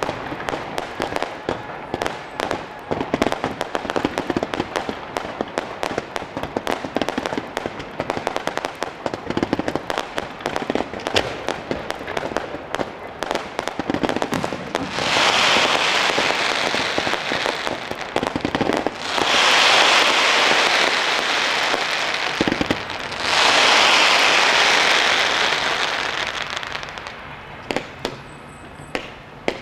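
Fireworks display: a dense, irregular run of pops and crackles for the first half, then three long, loud rushing hisses of about four seconds each, which are the loudest part. The sound thins out to scattered pops near the end.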